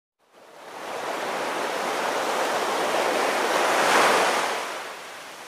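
Ocean waves washing onto a beach, a steady surf hiss that swells to a peak about four seconds in and then ebbs away.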